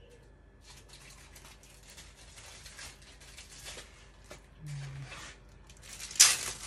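Paper towel and a thin plastic bag being handled and wrapped around a sandwich: irregular rustling and crinkling, with a sharp, louder rustle about six seconds in.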